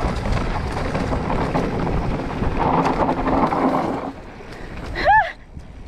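Wind buffeting the microphone and the tyres of a Specialized Stumpjumper EVO mountain bike rolling fast over a dry, loose dirt trail. The rushing drops away about four seconds in, and just after five seconds a short vocal 'whoa' rises and falls in pitch.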